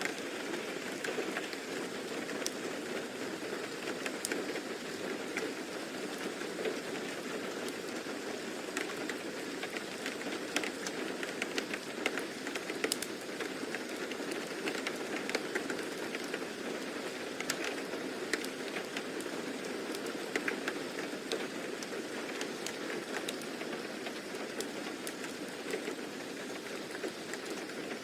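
Steady rain falling, an even hiss with many scattered drop ticks.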